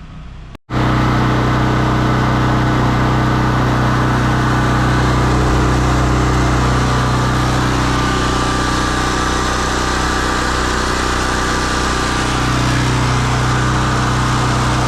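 Small gasoline engine-driven portable generator running at a steady, unchanging speed, a loud continuous hum. It starts abruptly about half a second in.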